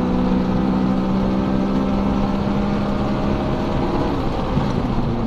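Honda Civic Si sedan's (FA5) 2.0-litre four-cylinder engine heard from inside the cabin, holding a steady high note at speed. About four seconds in, the steady note breaks up and wavers.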